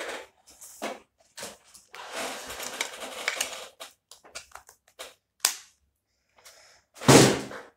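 Plastic clicks and rustling from hands handling a smartphone and its small accessories, with a sharp click about five and a half seconds in and a louder, brief burst of noise near the end.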